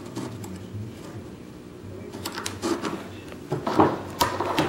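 Hands fumbling with the setup and the camera while starting the Arduino board: a low steady hum, then irregular clicks and knocks with rustling from about two seconds in, the two loudest knocks about a second apart near the end.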